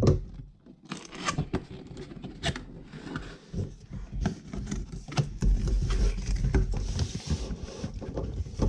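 Cardboard packaging being handled and opened: scraping, rustling and tearing with scattered knocks and taps, busiest in the second half.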